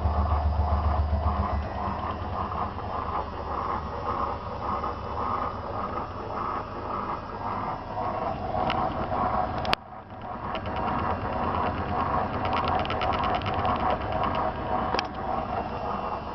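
Zanussi FL984CN washing machine running a 35° wash: the drum turns with an even rhythmic swish over a motor hum that eases early on. About ten seconds in a sharp click comes with a brief drop, then the tumbling resumes with fast rattly ticks.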